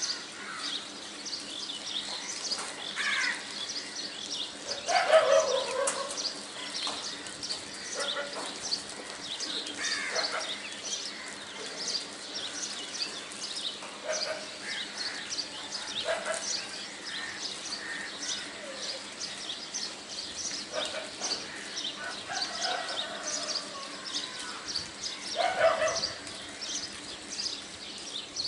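Birds chirping in the background: many short, high chirps throughout, with a few louder, lower calls that fall in pitch. The loudest comes about five seconds in and another near the end. A faint steady hum runs underneath.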